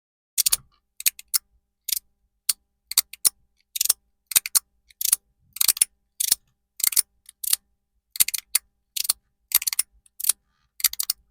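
A Tygo Monkey Mind magnetic fidget slider set in a SKYTOWER slider being slid back and forth: the middle piece bumps and snaps against the other pieces with sharp clicks, about two a second and often in quick pairs.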